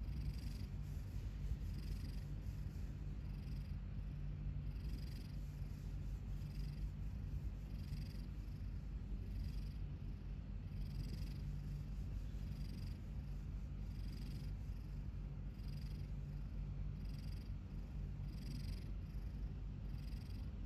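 A cat snoring in its sleep, its mouth held open by a tooth caught on its lip: a soft raspy breath about every second and a half over a steady low rumble.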